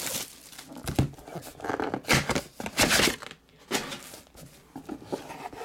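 Plastic shrink-wrap being torn and crinkled off a cardboard trading-card box, in quick rustling bursts that are loudest two to three seconds in, then a few softer rustles.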